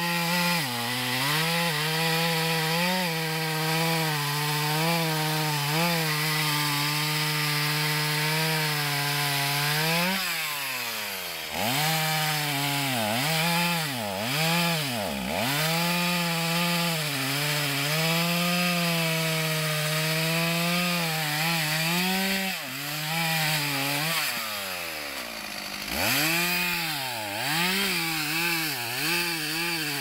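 Two-stroke chainsaw cutting through a felled tree trunk at high revs. Its engine note dips and climbs back many times, with longer drops about a third of the way in and again past two-thirds.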